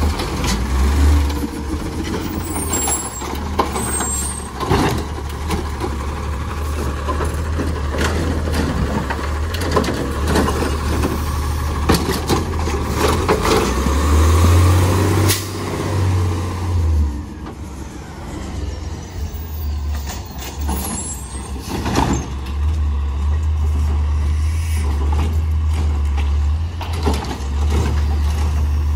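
Autocar ACX refuse truck with a Heil Rapid Rail automated side arm working a trash cart: the heavy diesel-type engine runs steadily while the arm grabs and dumps the cart, with repeated clunks and knocks and hisses of the air brakes as the truck stops and pulls away.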